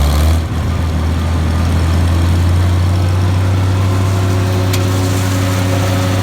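Farmall 560 tractor engine running steadily under load as its PTO drives a New Holland 354 grinder mixer up to speed. The engine note drops just after the start as the PTO clutch takes up the load, and a higher hum joins about four seconds in.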